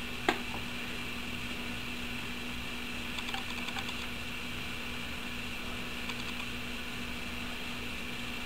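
A spoon clinking lightly against a saucepan and a plate while sauce is ladled out: one sharp clink near the start, then a few small scattered clicks, over a steady background hum.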